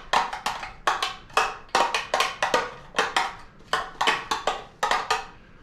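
A rapid run of sharp taps and knocks, about three or four a second, as chopped onion and pepper are knocked out of their container into a mixing bowl. The tapping stops shortly before the end.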